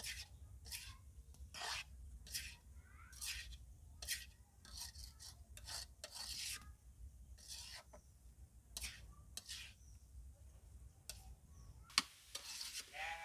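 A spatula scraping through grated coconut and sugar in a kadai as it is stirred on low heat: soft, irregular scrapes, about two a second, with a sharper knock near the end.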